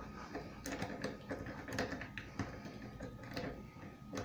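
An auto jiggler key being rocked and worked in a wafer lock, giving irregular light metallic clicks and scrapes as it rubs the wafers. The lock does not open.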